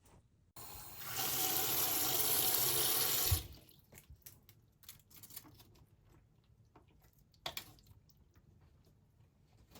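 Water running from a tap for about three seconds, then shut off, followed by a few light clicks and a single knock.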